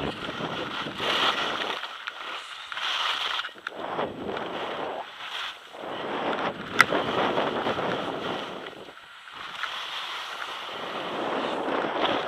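Skis scraping and carving on packed snow through a run of turns, the hiss swelling and fading every second or two, with wind rushing over the microphone. A single sharp click about seven seconds in.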